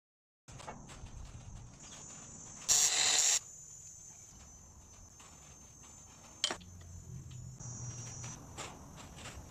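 Crickets chirping steadily in the background. A short loud burst of noise comes about three seconds in, and a single sharp knock comes at about six and a half seconds.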